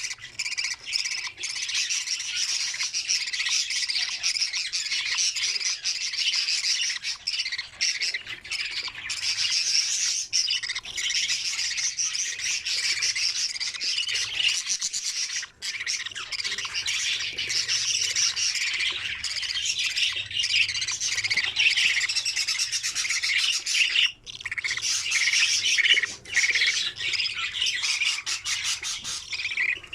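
Budgerigars chirping and squawking in a dense, continuous chatter of rapid high calls.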